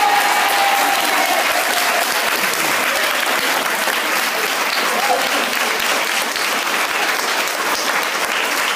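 A hall full of schoolchildren and staff applauding, steady and sustained, with a high held cheer trailing off over the first two seconds.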